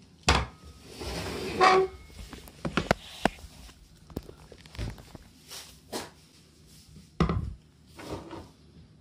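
Scattered knocks, thumps and light clicks as a dog's meal on a small wooden stand, in a stainless steel bowl, is set down and shifted on a wooden floor. The loudest thumps come just after the start and about seven seconds in.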